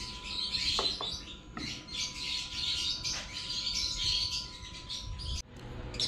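Caged lovebirds chirping continuously.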